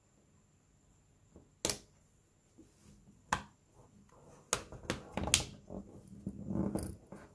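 Sharp clicks and handling noise of small plastic phone parts and a small screwdriver on a Samsung Galaxy S4's housing as it is put back together by hand. Near quiet at first, then a few separate clicks, growing into denser clicking and rustling in the second half.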